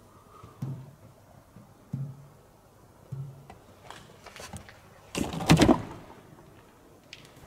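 Hollow thuds on a car's sheet-metal roof as a cat steps across it, three soft knocks about a second apart, then a louder scuffling clatter a little after five seconds in as it leaves the roof.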